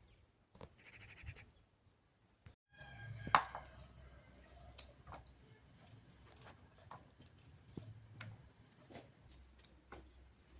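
A short quavering animal call about a second in. Later a sharp knock, the loudest sound, then scattered light clicks and knocks over a faint steady high whine.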